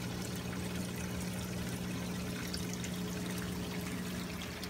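Water trickling and splashing in a reef aquarium's sump and filtration equipment, over a steady low hum.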